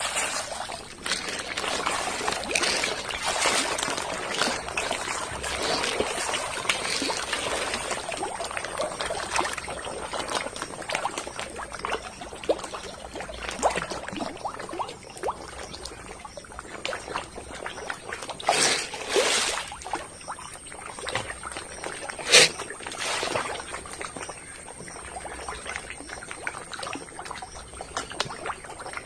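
Pond water splashing and trickling, with many small splashes and a few louder ones about two-thirds of the way through, as tilapia and catfish feed at the surface.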